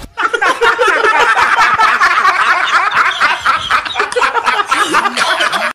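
Laugh track: many people laughing together in a dense, continuous wash, cutting off suddenly at the end.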